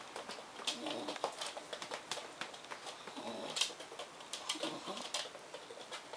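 A Bedlington terrier making funny, low, wavering vocal noises several times, close to a cooing grumble, mixed with sharp clicks and taps of claws and metal around a wire crate on a tiled floor.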